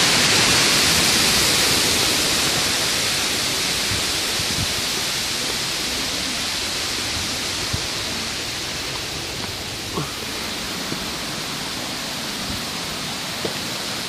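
Waterfall's rushing water, a steady noise that fades slowly as the listener walks away from the falls, with a few faint clicks.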